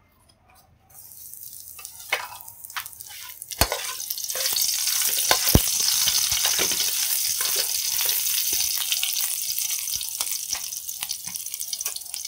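Garlic cloves sizzling in hot oil in a wok, frying to flavour the oil. The spatula stirs them, with a few sharp taps against the pan. The sizzle starts about a second in and grows louder about four seconds in.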